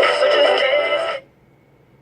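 Radio playing a station jingle with sung music that stops abruptly about a second in, leaving only faint hiss.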